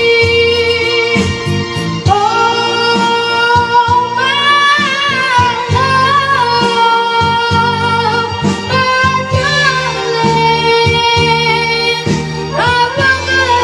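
A high singing voice holding long, wavering notes and gliding between them, over instrumental accompaniment.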